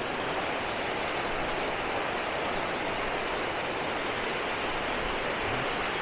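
Steady rush of a waterfall and the creek cascading over rocks at its base, heard up close.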